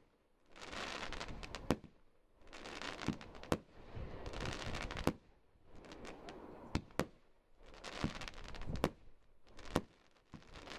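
Firework cake, a Frozen Sun fan barrage, firing its tubes in turn: each shot is a hiss that swells for about a second and ends in a sharp bang as the shell breaks. About seven bangs come every second and a half to two seconds.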